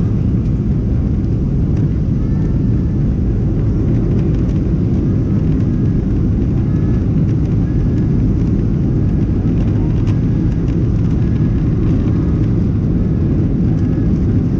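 Cabin noise of a Boeing 737-700 taxiing: the steady low rumble of its CFM56 turbofan engines at taxi power.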